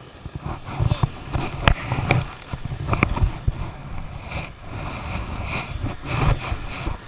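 Wind buffeting the microphone in irregular low gusts, with scattered sharp knocks and clicks.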